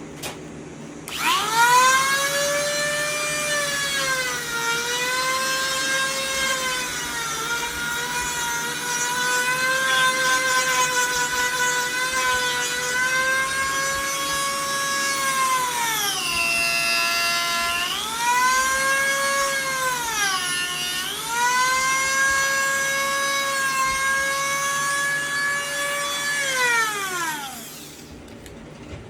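Dremel rotary tool running at high speed and carving into pine, a high whine whose pitch sags each time the bit bears into the wood and recovers as it eases off. Near the end it is switched off and winds down in one falling glide.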